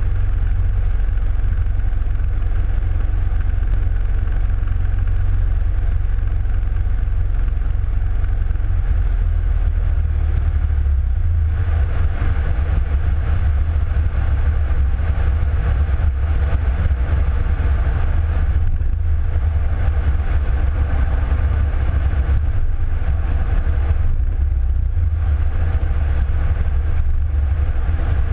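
Legal Eagle ultralight's engine and propeller droning steadily in flight, heard from a camera under the wing; the tone changes slightly about eleven seconds in.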